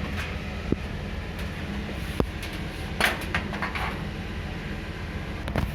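Desktop computer cabinet being opened: a handful of short clicks, knocks and a brief scrape as the metal side panel is handled, over a steady low hum.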